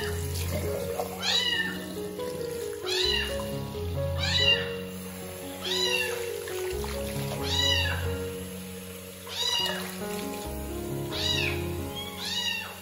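Kitten meowing over and over, about one meow every second and a half, each rising then falling in pitch, over background music with held chords.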